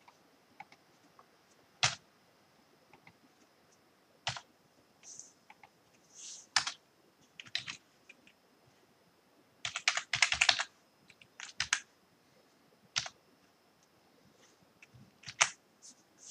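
Computer keyboard keystrokes: single key presses every second or two, with a quick run of rapid typing about ten seconds in.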